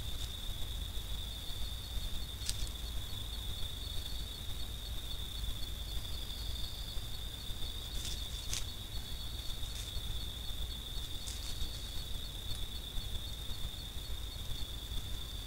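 Night insects: one steady, unbroken high-pitched trill, with a fainter second insect pulsing just above it. A few sharp, short clicks stand out over the trill.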